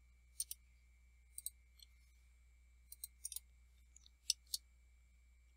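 Computer keyboard keys clicking: a dozen or so faint, sharp key clicks in small irregular clusters, the loudest pair a little past four seconds in.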